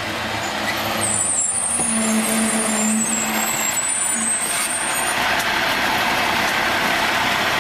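Crane Carrier Company garbage truck's diesel engine running as the truck pulls up and stops, with a high-pitched air-brake sound from about one second in that lasts several seconds.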